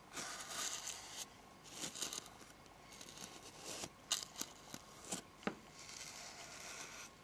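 Bristles of a brush stroking across the microphone as a thin face mask is painted on, in soft scratchy swishes, with a few light clicks and taps between the strokes.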